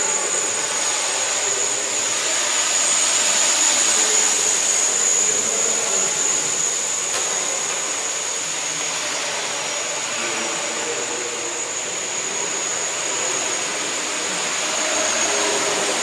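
Flyduspider hexacopter's electric motors and propellers whirring steadily in flight: a rushing noise with a high, steady whine on top. It swells and eases slightly as the craft moves around.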